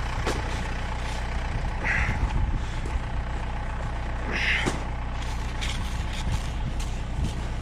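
Tractor engine running steadily at idle, with two brief scraping noises about two and four and a half seconds in.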